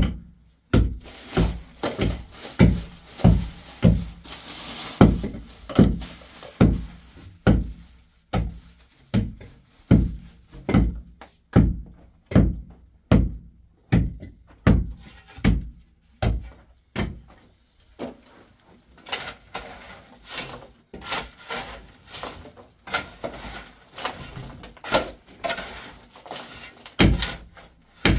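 Repeated heavy thuds of a digging tool striking hard earth and stone, coming steadily about one to two a second, with a short break about two-thirds of the way through.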